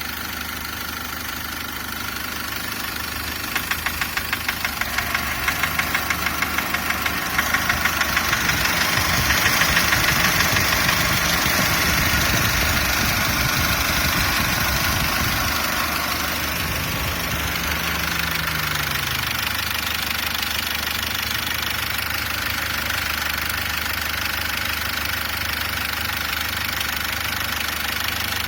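SsangYong Actyon Sports 2.0 L turbodiesel (DTR2.0) running with a regular knock from the engine. A few seconds in, the revs rise and are held, then drop back to idle about two-thirds of the way through. The knock is plainest as the revs climb.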